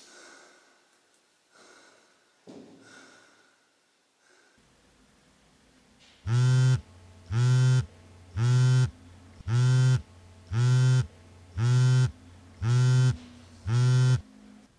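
iPhone vibrating against a wooden tabletop for an incoming call: eight buzzes about half a second long, roughly one a second, starting about six seconds in.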